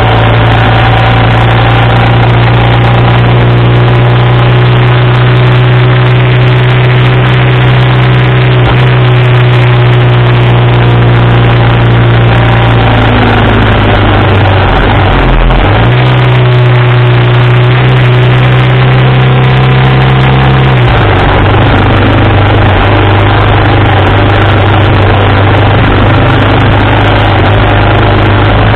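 1987 BMW R80RT's air-cooled flat-twin engine running at road speed, heard close up, with wind noise rushing over it. The engine note dips and recovers about halfway through, then settles lower about two-thirds of the way in.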